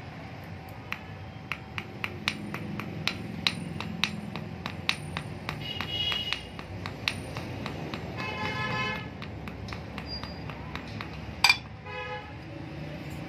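Small hammer tapping a thin metal rod against a steel block anvil: light, ringing metallic taps about twice a second, with one harder strike near the end. A vehicle horn sounds for about a second partway through.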